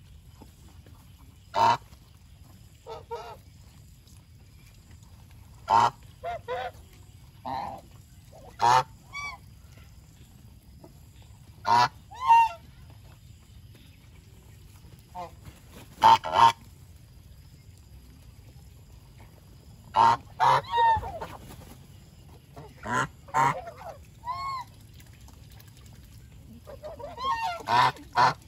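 Domestic geese honking in short, separate calls every few seconds, sometimes several overlapping at once, with a cluster of calls near the end.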